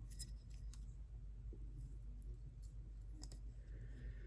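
Faint scattered clicks and light taps of small items being handled, over a low steady hum.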